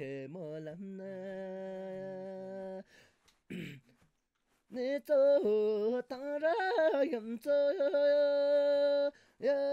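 A solo voice singing a slow, unaccompanied-sounding song: long held notes joined by quick wavering ornaments. It breaks off for about two seconds around three seconds in, then comes back louder and higher.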